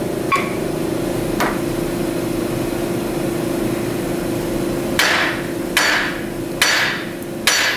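Four sharp hammer blows, a little under a second apart, near the end, struck on the machined flat spot by a Jeep Grand Cherokee WJ's front tie rod end to shock its tapered stud loose. Two light taps come earlier. A steady hum sits underneath.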